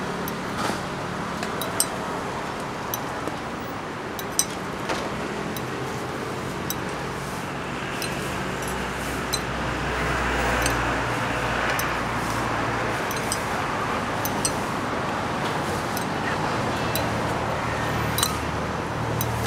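Steady street traffic noise, swelling with a low rumble about halfway through as a vehicle passes, with scattered light clicks and taps.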